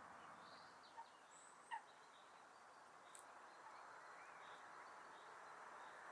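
Near silence: a faint steady hiss with a few short, faint bird chirps, the clearest about a second in and just under two seconds in.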